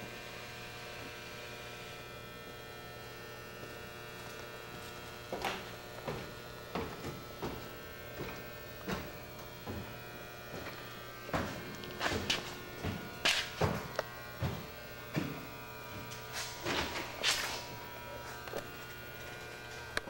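Steady electrical hum made of many steady tones, with irregular short knocks and rustles starting about five seconds in, typical of a camcorder being handled and moved about.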